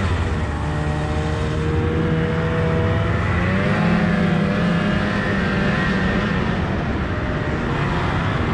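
2003 Polaris Indy 600 snowmobile's two-stroke engine running steadily while riding, its pitch rising briefly about three and a half seconds in and then easing back.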